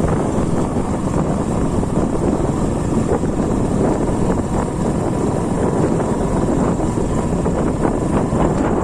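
Motorcycle on the move: wind rushing over a phone microphone with the engine running steadily underneath.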